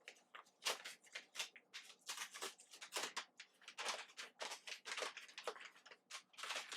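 Plant-shipping packaging being handled and unwrapped: quick, irregular rustling and crinkling.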